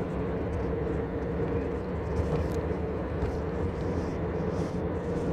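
Steady vehicle running noise: a low rumble with a constant hum that holds without change.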